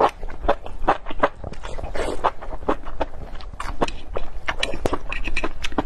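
Close-miked mouth sounds of someone slurping and chewing saucy enoki mushrooms: a quick, irregular run of wet slurps, smacks and clicks.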